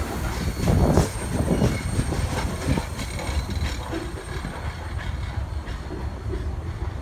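Freight train cars rolling past, with wheels clacking and knocking over the rail and a faint high wheel squeal. The sound is loudest about a second in and then gradually fades.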